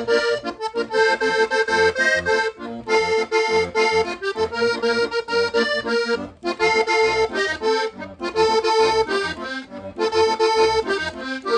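Hohner Corona II Compadre button accordion, two reeds per button, playing vallenato phrases in short bursts of chords and melody with brief breaks between them, a dry two-reed sound close to the old juglares' style.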